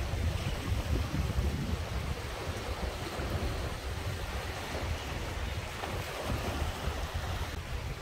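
Sea waves washing and breaking over and around rocks on a rocky shore, a steady surging wash. Wind gusts rumble on the microphone underneath.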